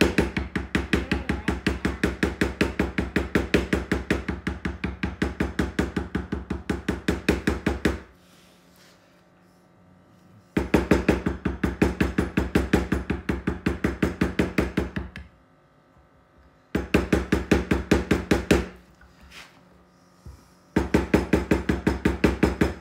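White poly maul rapidly striking a metal leather-stamping tool, about five sharp knocks a second, as a pattern is stamped into a leather knife sheath. The strikes come in four runs with short pauses between them.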